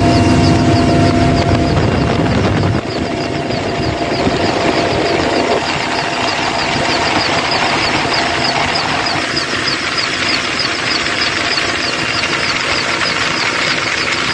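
Helicopter engine and rotor noise heard from the open cabin door while hovering, loud and steady. A fast, rhythmic pulsing runs through its high whine.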